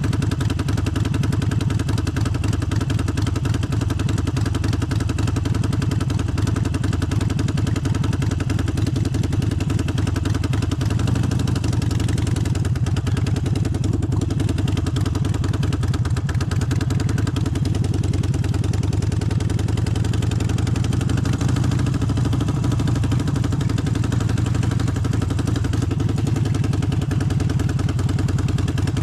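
Harley-Davidson Forty-Eight's 1200 cc air-cooled V-twin running steadily.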